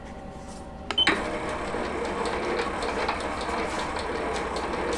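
Metal lathe switched on with a click about a second in, then running steadily, its spindle turning a coaxial centring indicator in the chuck.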